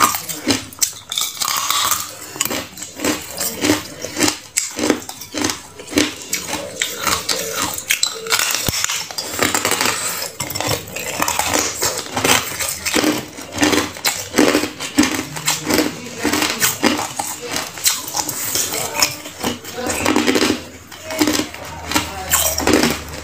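Hard clear ice being bitten and chewed: a dense run of sharp cracking and crunching, with only short pauses between bites.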